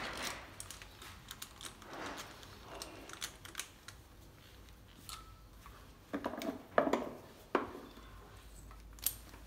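Gloved hands moving a compression tester hose and fitting on a bare diesel engine: scattered light metallic clicks and scrapes, with a cluster of louder knocks and rustles about six to seven and a half seconds in.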